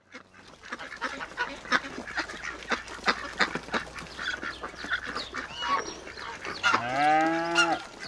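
Farmyard animal sounds: a busy stream of short poultry calls, with geese and ducks honking and quacking. About seven seconds in, a single long, steady-pitched cow moo lasts about a second.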